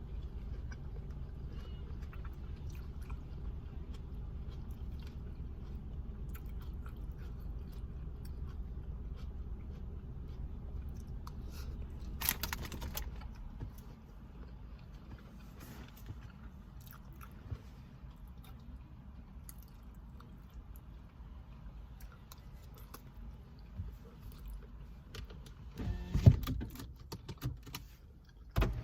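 Someone eating: chewing and small crunching and clicking mouth and food sounds. A steady low rumble stops about halfway through. There is a sharp noise near the middle and a loud low-pitched sound near the end.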